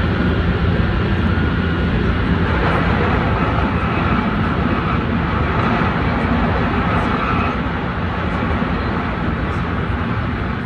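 Running noise inside a Tsukuba Express train at speed: a steady, dense rumble of wheels and running gear with a hiss of air past the car, easing off slightly near the end.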